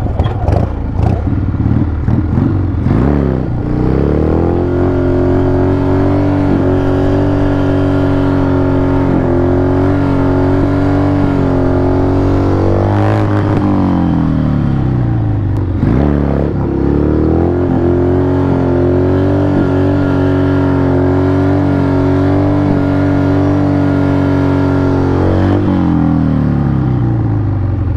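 Harley-Davidson V-twin motorcycle engine being ridden. It pulls away with rising revs, holds a steady speed, and eases off about 13 seconds in. It then accelerates again, holds steady, and eases off near the end.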